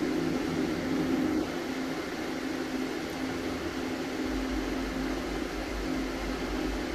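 Steady mechanical room hum, with a deeper low rumble coming in a little past halfway.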